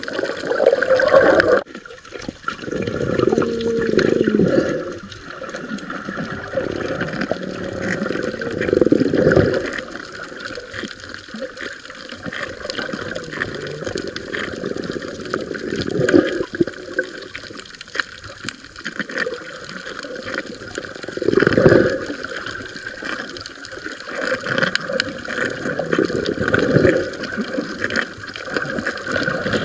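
Water sloshing and gurgling in irregular surges close around the microphone, typical of a camera held at or just under the surface while snorkeling. The sound changes abruptly about two seconds in.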